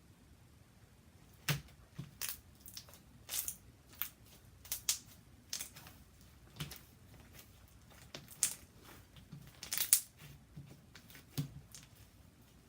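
Slime being squeezed and worked by hand, giving off a string of irregular sharp pops and crackles as air bubbles in it burst, the loudest a double pop near the end.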